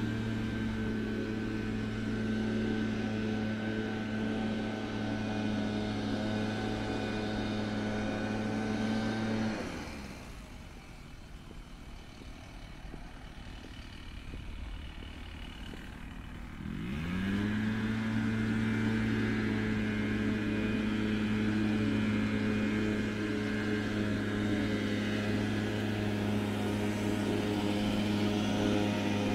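An engine running at a steady pitch, which falls away about ten seconds in and revs back up to the same steady pitch about seven seconds later.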